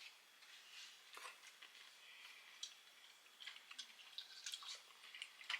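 Faint chewing of a bite of pickle, with scattered small clicks.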